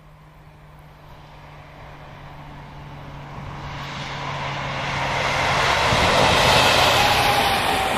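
DB Class 218 diesel-hydraulic locomotive hauling a double-deck regional train as it approaches and passes. A steady low engine hum grows into rising engine and wheel noise that is loudest about six to seven seconds in.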